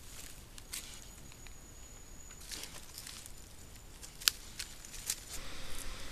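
Wild boar piglets moving and rooting in dry leaf litter: soft rustles and scattered light clicks, with one sharp tap about four seconds in as a piglet comes right up to the camera.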